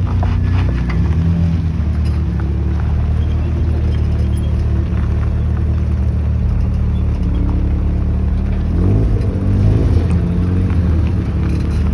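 Car engine running with a steady low rumble, its pitch rising briefly about nine seconds in.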